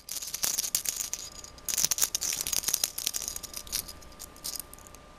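A cat's claws scratching and batting at a bedcover, a rapid crackly rustling of fabric in irregular bursts that die away near the end.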